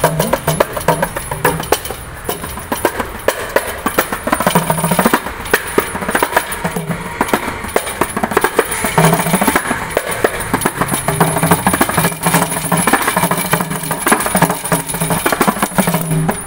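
Kanjira, the South Indian frame drum with a single pair of jingles, played solo by hand: fast, dense finger strokes with jingle rattle and recurring deep bass notes.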